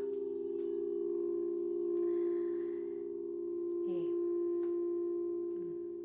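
Crystal singing bowls sounding together: several steady tones held at once, slowly swelling and easing in loudness.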